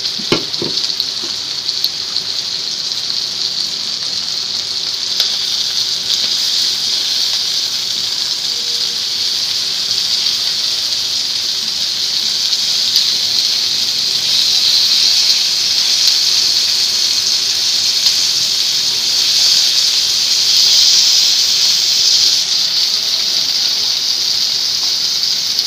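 Chiring (mudskipper) fish and sliced onions frying in hot oil in an open wok, a loud steady sizzle that grows a little louder around the middle.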